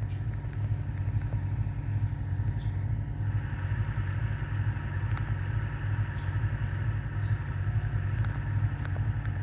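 Land Rover Defender's engine running steadily with a low, pulsing rumble. A higher hiss joins about three seconds in.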